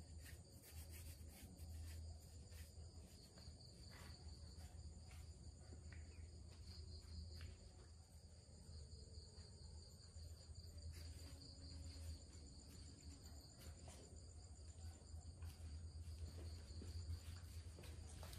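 Near silence: faint room tone with a steady low hum, thin steady high-pitched tones, and a few faint clicks.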